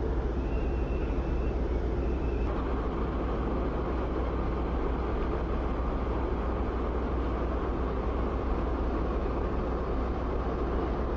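Steady low drone and rumble of a large car ferry's machinery, heard on its open deck. The noise shifts slightly about two and a half seconds in.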